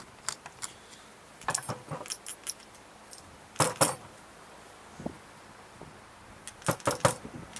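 Light metallic clicks and clinks of a flat-tip screwdriver and small metal carburetor parts as the stuck main jet of a Kohler small-engine carburetor is worked loose. They come in scattered groups, the loudest about three and a half seconds in and another cluster near the end.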